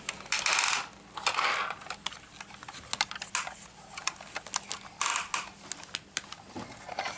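Irregular plastic clicking and rattling from a toy excavator as its boom and lever are worked by hand, with a few short rustling bursts in between.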